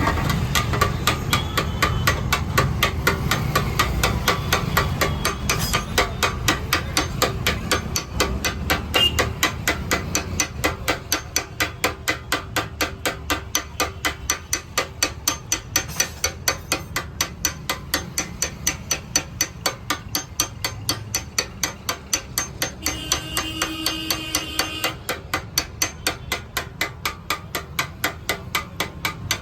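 Hammer striking the metal of a Hero Splendor motorcycle's petrol tank in a steady, fast rhythm, about three to four blows a second, as the tank is beaten back into shape during repair.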